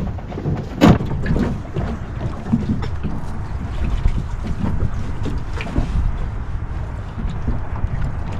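Wind buffeting the microphone over small waves slapping against a metal jon boat's hull, with one sharp knock about a second in and lighter knocks and splashes after it.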